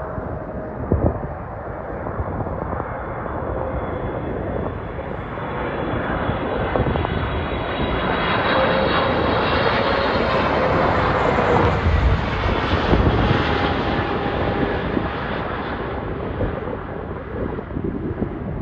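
Boeing 777 twin jet engines passing by: a steady jet roar with a high whine that swells to its loudest a little past halfway, then fades away.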